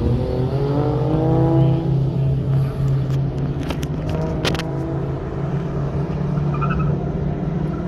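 Six-litre V8 with a mild cam running: a short rise and fall in revs in the first two seconds, then a steady idle. A few sharp clicks come around the middle.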